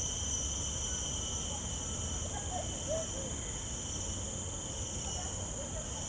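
Steady insect chorus: a constant high-pitched buzz in two layers, with a few faint chirps in the background.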